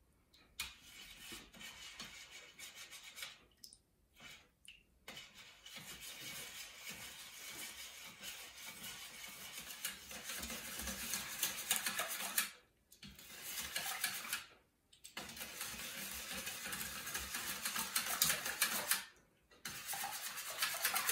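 A wire whisk beating a thin flour-and-water batter in a stainless steel bowl, its wires ticking rapidly against the metal, to whisk out the lumps. The whisking stops briefly a few times.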